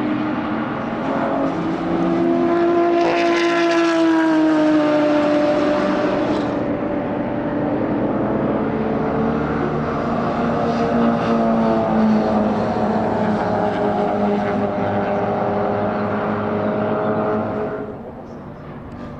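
Classic racing car engines running hard past the track, their pitch gliding up and down as cars go by and change gear. The sound drops away near the end.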